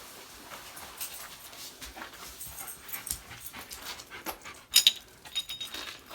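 A dog panting, with crunching, rustling steps and scattered sharp clicks; the loudest is a pair of clicks about three-quarters of the way through.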